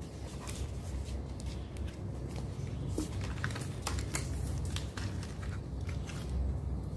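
Hands handling and opening a small white cardboard box: scattered light clicks, taps and scrapes of card against card and fingers.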